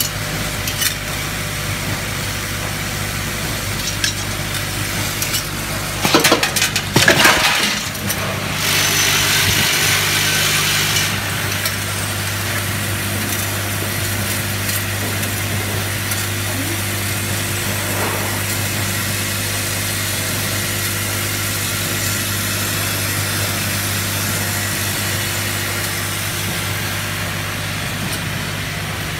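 Vibratory bowl feeders of a counting packing machine running: a steady low electric hum with small hardware parts (screws, wooden dowels, rubber sleeves) rattling and clinking along the stainless steel bowl tracks. A louder burst of clatter comes about six to eight seconds in.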